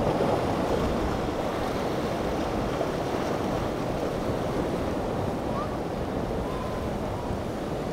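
Surf and choppy inlet water washing and breaking, with wind buffeting the microphone.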